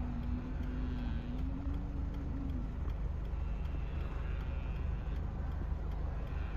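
Cattle lowing: one long low moo in the first two to three seconds and fainter calls about four seconds in, over a steady low rumble.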